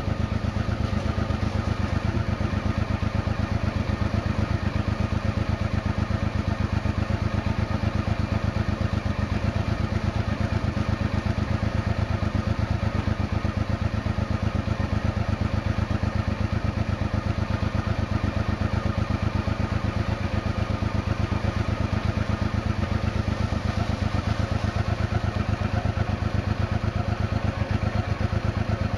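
1992 Honda XRV750 Africa Twin's V-twin engine idling steadily, heard close at the exhaust muffler as an even, unbroken stream of exhaust pulses.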